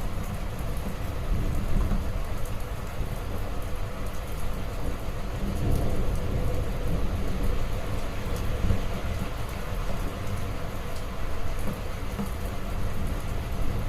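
Steady heavy rainfall with a deep, continuous low rumble under it that swells a little midway, with scattered drop ticks on top.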